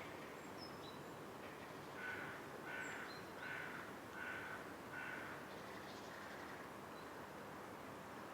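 Outdoor ambience with a bird giving a run of five calls, about one every 0.7 s, and a few thin, high chirps from smaller birds over a steady background hiss.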